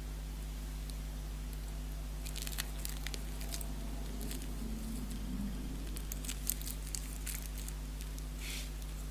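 Faint handling noise: light rustles and small clicks as a wristwatch is turned over in the hand, in two short clusters, over a steady low electrical hum.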